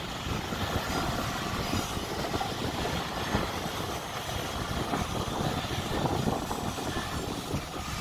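Freight train of double-stack container cars rolling past on a curve, a steady low rumble of wheels on the rails.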